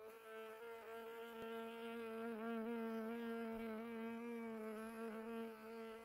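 Honeybee buzzing in flight, a steady hum that wavers slightly in pitch.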